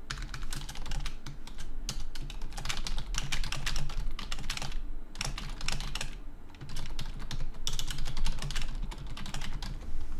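Fast typing on a computer keyboard, a quick irregular patter of key clicks with a couple of brief pauses midway.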